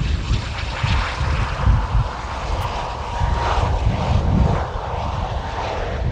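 Eurofighter Typhoon's twin EJ200 turbofan jet engines running as the fighter speeds along the runway: a loud, continuous jet roar with a heavy low rumble and a thin, steady whine.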